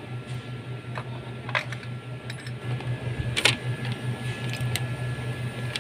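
Light metallic clicks of a spark plug being handled and threaded by hand into the engine's cylinder head, over a steady low hum, with a short falling squeak about three and a half seconds in.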